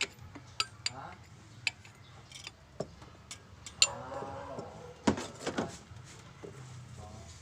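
Scattered sharp metallic clicks and clinks of hand tools working at an engine's temperature sending unit in a cramped spot. A voice is heard briefly in the background about four seconds in.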